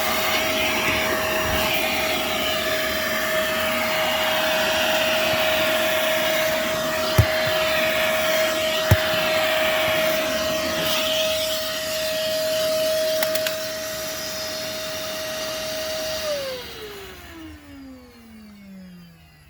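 Vacuum cleaner running on a car's interior: a steady rush of air with a constant whine, and the nozzle knocks twice against something. About sixteen seconds in it is switched off, and the motor's whine falls steadily in pitch as it winds down.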